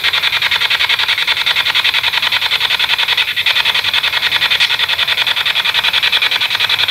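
Spirit box scanning through radio frequencies: a steady hiss of static, chopped into rapid, even pulses as it sweeps.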